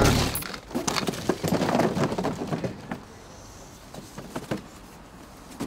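A crash, then cardboard boxes tumbling and knocking against each other and the ground for about three seconds, followed by a few scattered knocks as the pile settles.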